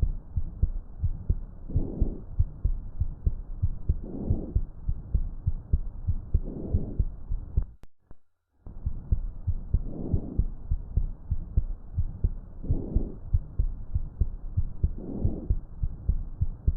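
Normal vesicular breath sounds heard through a stethoscope: a soft, muffled whoosh with each breath, about every two and a half seconds, over steady heartbeat thumps. The sound cuts out briefly about eight seconds in.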